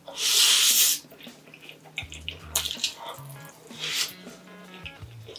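A loud wet slurp of spicy stir-fried ramen noodles lasting about a second, followed by softer chewing and smacking mouth sounds. Quiet background music with a low bass line plays underneath.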